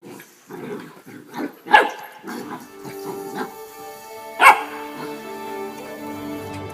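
Dog barking in short, sharp barks, with two loud ones, one near two seconds in and one past the middle, over background music.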